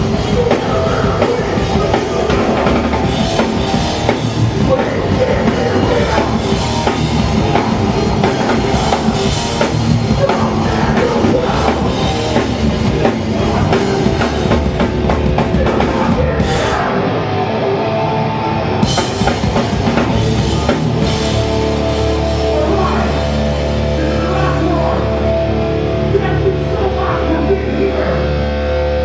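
Hardcore punk band playing live: fast drum kit, distorted guitars and shouted vocals. About two-thirds of the way in, the drumming drops away and a held, ringing guitar chord carries on.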